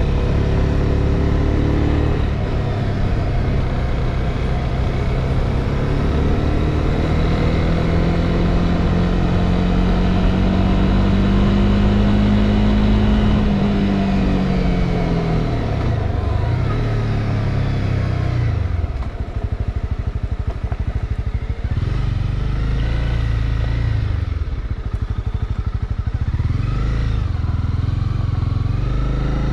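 Honda CB300R's single-cylinder engine running while riding, its pitch climbing slowly for much of the first half, dropping as the throttle is eased about halfway through, then rising again near the end.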